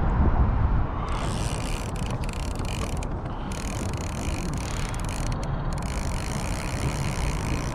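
Fishing reel running with a fast mechanical ratchet-like whir as the jig is sent down, cutting out and starting again a few times, over a steady low rumble of wind on the microphone.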